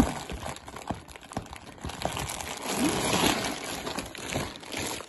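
Hands rummaging through a cardboard box of loose plastic building bricks and bagged parts: plastic bags crinkling, with small clicks and rattles of bricks, and a plastic mailer bag rustling as it is lifted out near the end.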